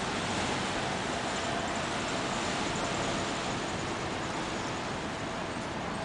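Wind blowing, a steady rushing noise without breaks.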